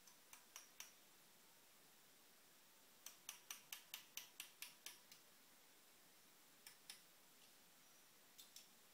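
Light metal-on-metal taps from a hammer striking a pin punch held against a CNC router spindle's bearing assembly. There are a few taps at first, then a quick run of about ten at roughly five a second, then two pairs of taps near the end.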